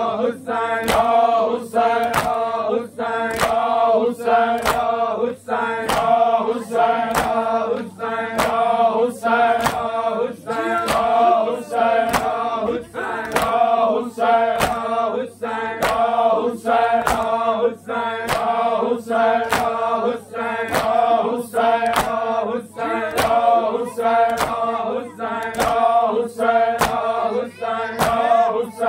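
Voices chanting a noha, a Shia lament, in chorus, with sharp rhythmic slaps of matam (chest-beating) about twice a second keeping the beat.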